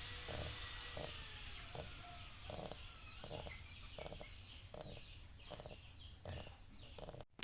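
A sick piglet's short, faint respiratory sounds repeating about every three-quarters of a second, a sign of the coughing illness that the owner takes for pneumonia.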